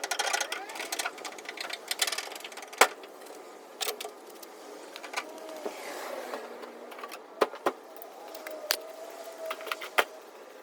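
Irregular sharp taps and clicks of paintless dent repair tools working the metal of a pickup's quarter panel, a few seconds apart.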